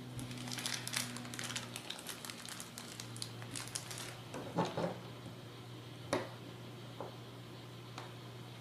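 Small plastic parts of a servo pan and tilt camera mount being handled, giving a quick run of light clicks and ticks in the first few seconds, then a handful of sharper single clicks spaced about a second apart. A low steady hum runs underneath.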